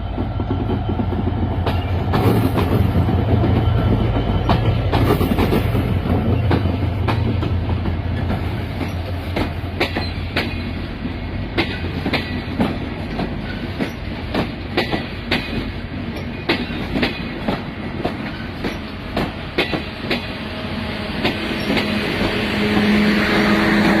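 A train running on the rails with a steady rumble and a clickety-clack of wheels over rail joints. A low steady tone comes in near the end.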